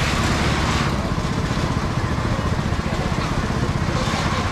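A small engine running steadily, with a fast, even low pulsing.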